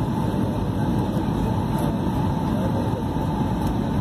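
Steady cabin noise of an airliner on approach, heard from inside the passenger cabin: engine and airflow noise at an even level, with a faint constant hum riding on it.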